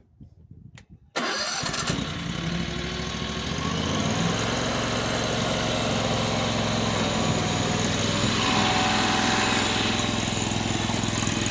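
Mini skid steer's engine starting about a second in and then running steadily, picking up a little a few seconds later.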